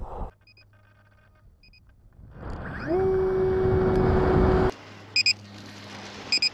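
Brushless electric motor and propeller of an RC glider throttling up: a whine rises quickly to a steady pitch under loud rushing air, then cuts off abruptly. Near the end come two pairs of short electronic beeps.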